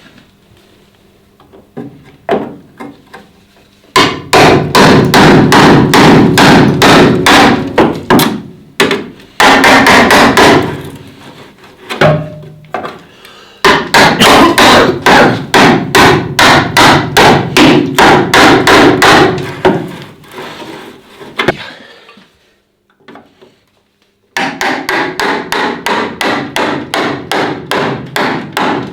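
Rapid hammer blows on sheet-metal bodywork, about four or five strikes a second, in several runs with short pauses and a brief quiet spell about three-quarters of the way in, used to knock out the remains of a rusted battery tray.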